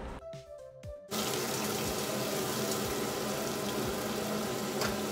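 Chopped vegetables sizzling as they sauté in hot coconut oil in a pot while being stirred. The steady sizzle cuts in abruptly about a second in and stops abruptly near the end.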